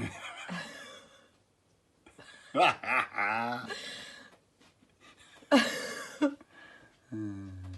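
People laughing and exclaiming without words, in several short bursts with pauses between, the loudest about five and a half seconds in.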